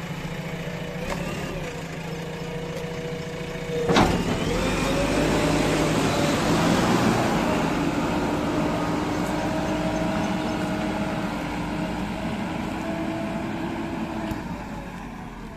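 JCB 3DX backhoe loader's diesel engine running, with a steady whine over it. A sharp clunk comes about four seconds in, and the engine then runs louder for a few seconds before easing off.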